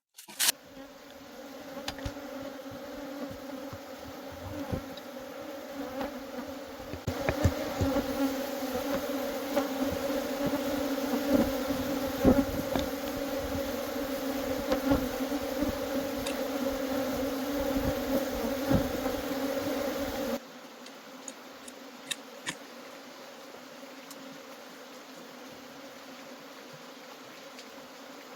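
A colony of honeybees buzzing: a dense, steady hum of many wings, with scattered clicks and crackles over it. About two-thirds of the way through it drops suddenly to a fainter hum that goes on.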